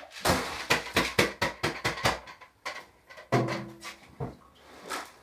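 Plastic fodder tub and tray being handled on the bottom shelf of a wooden rack: a quick run of knocks and scrapes for about two seconds, then a brief low hum and a few softer knocks.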